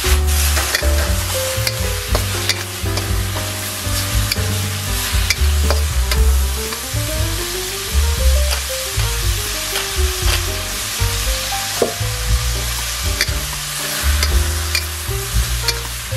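Vegetables stir-frying in a wok: a steady sizzle, with a metal spatula scraping and clicking against the pan, over background music with a bass line.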